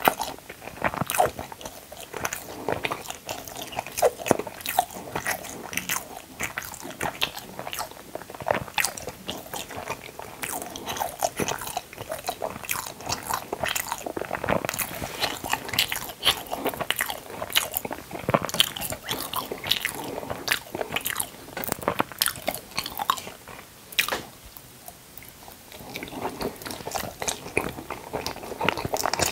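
Close-miked chewing of a soft white food: many small, irregular wet mouth clicks and chewing sounds, with a short quieter lull near the end.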